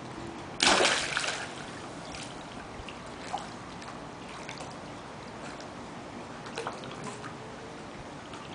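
A dachshund jumps into a swimming pool with one loud splash about half a second in, then water sloshes with a few small splashes as it swims.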